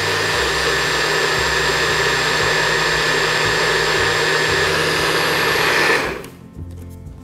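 NutriBullet blender running at full speed, its motor whining steadily as the blades blend a smoothie, then cutting off sharply about six seconds in.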